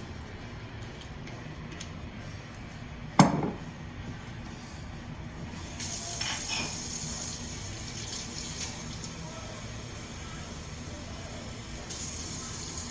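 A single sharp knock about three seconds in, then a kitchen tap running, with water filling a glass. The flow gets louder about six seconds in, eases, and picks up again near the end.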